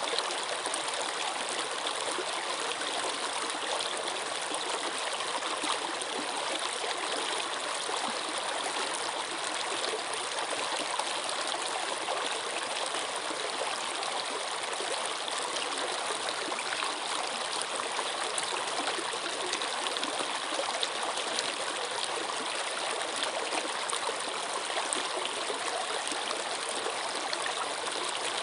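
A stream of water running steadily, a constant rushing babble with small splashes and trickles in it.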